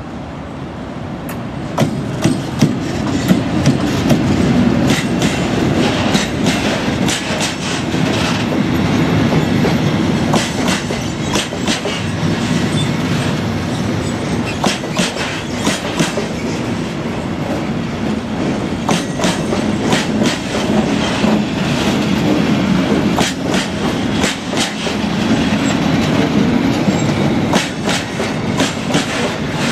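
Mixed freight train hauled by a Škoda E182 electric locomotive, passing close by. A steady low rumble of rolling wagons grows louder over the first few seconds, with frequent sharp clacks of wheels over rail joints.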